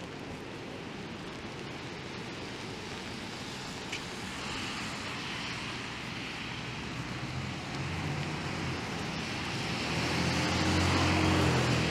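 City street traffic: a steady wash of passing-vehicle noise, with a motor vehicle's engine hum building over the last few seconds and loudest near the end as it draws close.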